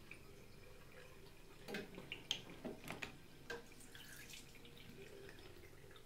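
Faint dripping water at a bathroom sink, with a handful of small knocks and clicks about two to three and a half seconds in.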